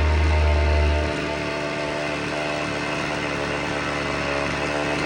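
Vintage Husqvarna 50 two-stroke chainsaw engine running steadily; a deep low hum that accompanies it drops away about a second in.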